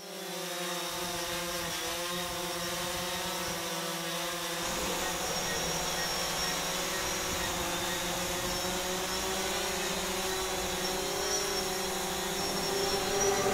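A steady buzzing hum of several held tones over a light hiss, shifting slightly in pitch about four and a half seconds in.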